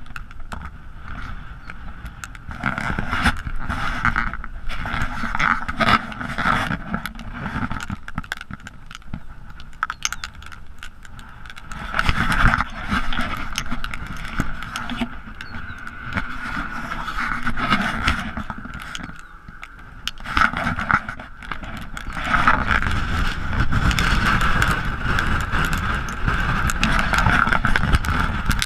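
Gusty outflow wind from a dry microburst buffeting the microphone: a rough rumbling roar that swells and eases, strongest over the last few seconds.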